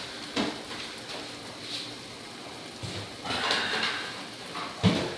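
Scattered knocks and handling noises from someone moving about a kitchen, with a sharp knock near the end.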